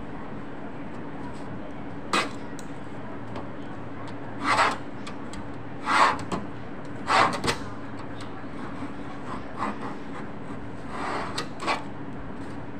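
A hand tool scraped in short rasping strokes across material on a worktable: about six strokes, each under a second, the loudest about six seconds in. A steady hum runs underneath.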